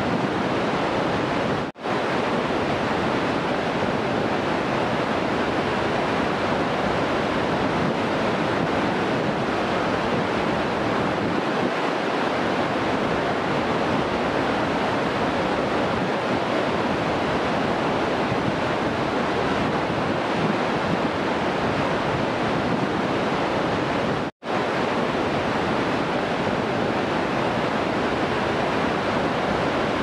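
Waterfalls and whitewater rushing as one steady, even noise. It is broken by two split-second gaps, one about two seconds in and one about three-quarters of the way through.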